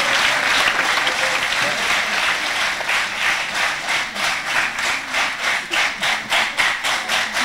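Audience applauding, the dense applause thinning about three seconds in into steadier clapping at about three claps a second.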